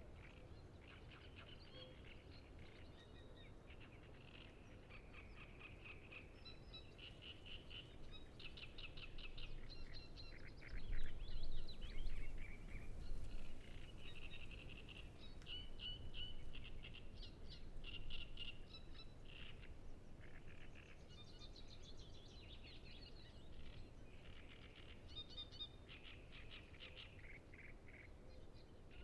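Great reed warblers singing, one phrase of quick repeated notes after another. A brief low rumble, louder than the song, comes about eleven seconds in.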